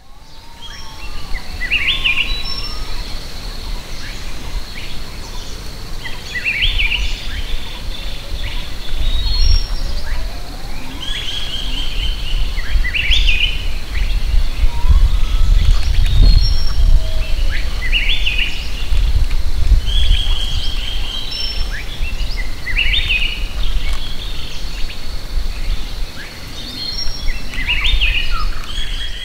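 Forest birds calling, a short burst of chirps every few seconds, over a steady high thin tone and a heavy low rumble.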